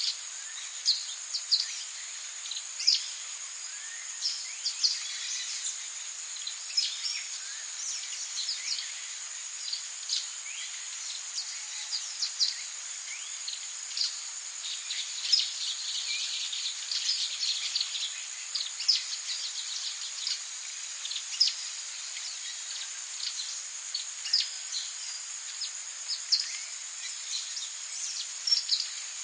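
Tropical rainforest ambience: a steady high-pitched insect drone with many short, scattered chirps from birds and insects.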